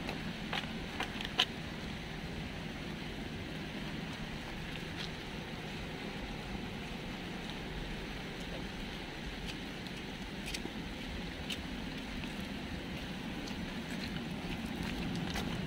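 Steady city street ambience in the rain: a constant rush of traffic and wet-street noise, with a few faint sharp ticks scattered through it.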